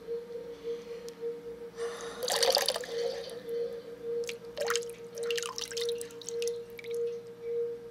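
Water dripping and splashing at irregular moments, busiest about two seconds in and again around the middle, over a steady wavering hum.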